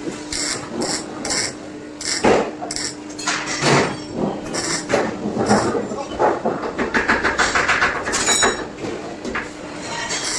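Repeated metal clanks and knocks, irregular and sharp, some ringing, over a steady machine hum.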